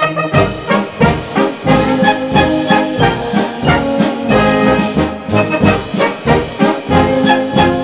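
Austrian wind band (Blasmusik) recording: brass band with trombones and trumpets playing a lively two-beat tune with a steady beat.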